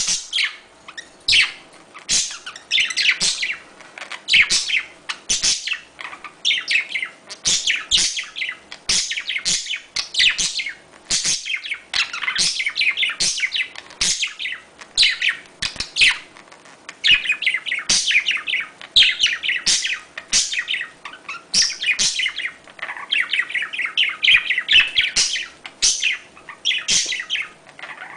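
Budgerigars chattering in busy, continuous bursts of high chirps and warbles, about one burst a second. This is the budgie breeding chatter that is played to stimulate pet budgies to mate.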